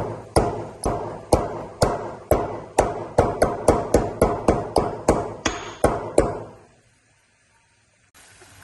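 Dry ginger (sonth) being pounded with a pestle in a mortar: a run of sharp strikes, about two a second at first, quickening to about four a second around three seconds in, and stopping about six seconds in.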